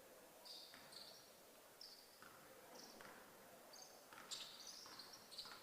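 Faint, scattered high-pitched squeaks of basketball shoes on a hardwood court, with an occasional faint knock.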